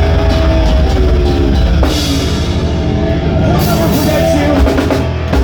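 Heavy metal band playing live at full volume: held, distorted guitar chords over drums, with a hard hit about two seconds in and a run of fast drum strikes and cymbal crashes in the last couple of seconds, as the song winds to its close.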